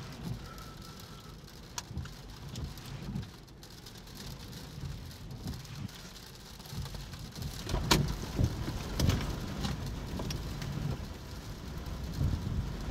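Storm ambience: rain and gusty wind with an irregular low rumble. A few sharp taps come about eight and nine seconds in.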